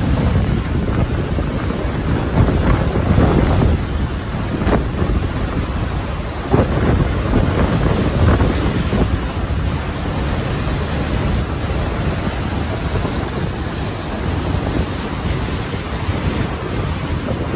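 Steady rushing of a large waterfall in heavy flow, with wind buffeting the microphone.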